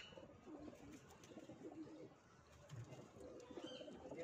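Madrasi domestic pigeons cooing faintly, several low, wavering coos overlapping one another.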